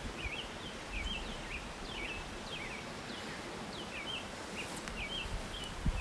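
Birds chirping steadily, many short high chirps a second, over a low rumble of outdoor background noise.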